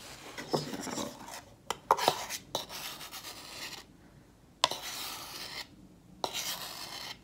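Scraping against a mixing container, broken by short pauses and a few sharp knocks, as the last of the gypsum cement mix is scraped out into a silicone mold.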